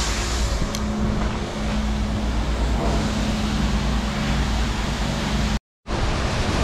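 Steady mechanical running with a low, even hum, which cuts out for a moment near the end.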